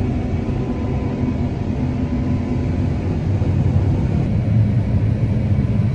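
John Deere combine harvesting canola, heard from inside the cab: the engine and threshing machinery run under load as a steady low rumble, with a faint steady hum above it.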